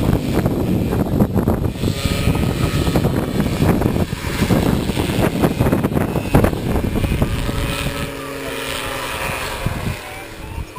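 Powered paraglider's motor and propeller droning steadily in the distance, largely covered by gusty wind noise on the microphone that eases in the last few seconds.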